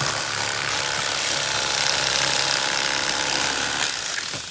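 Electric fillet knife running steadily with a motor hum and buzz as it cuts along a fish fillet to zip out the bloodline; it stops shortly before the end.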